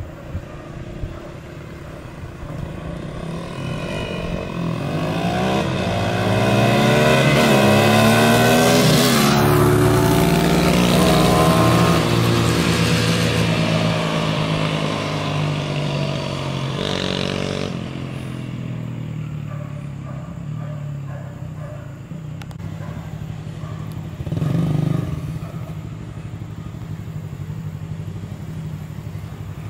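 Dirt bike engine revving up and getting louder as it approaches, rising in pitch through several glides, then falling in pitch and fading as it moves away. Later comes a brief louder burst.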